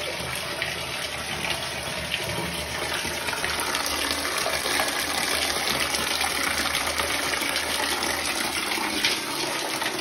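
Water running steadily and splashing into a tub, a continuous even rush.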